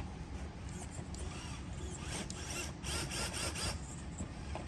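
Traxxas TRX-4M micro crawler running on its brushed motor and geared drivetrain as it crawls over rocks, with a steady mechanical whir. In the middle there is a run of quick clicks and scrapes from the tyres and chassis on the rock.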